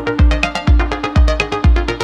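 Electronic dance music: a deep kick drum on a steady beat about twice a second, with a held synth tone and quick hi-hat ticks over it.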